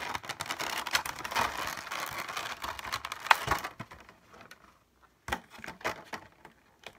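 Clear plastic blister packaging being handled and pried apart: crinkling and clicking of stiff plastic, with a sharp click about three seconds in, then a few separate clicks as it goes quieter.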